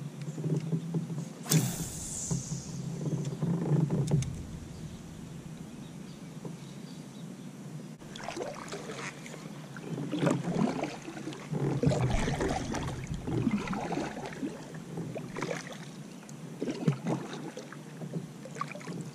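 Kayak paddle strokes, the double blades dipping and pulling through the water stroke after stroke, about one a second from partway through. A single sharp knock comes about a second and a half in.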